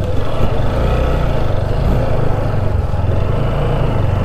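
Motorcycle engine running at a steady speed while riding, a constant low hum.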